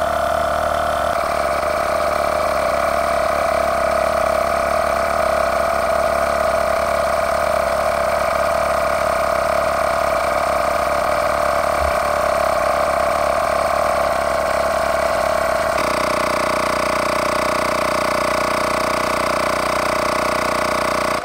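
Hoto Air Pump Pro battery-powered portable tire inflator running steadily as it pumps up a tire, its pitch shifting slightly about a second in and again near the 16-second mark. It cuts off abruptly at the end: the automatic shut-off on reaching its preset 51 PSI.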